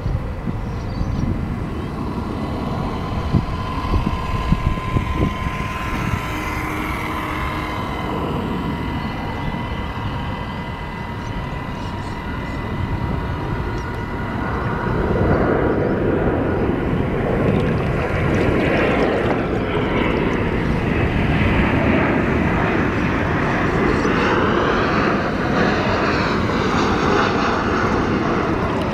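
A steady motor drone with wind buffeting the microphone. A thin steady whine sits over it in the first half, and about halfway through a louder, broader rushing drone comes in, with slow rises and falls in pitch.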